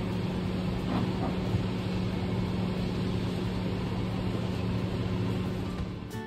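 Steady low machine hum over the background noise of a busy market.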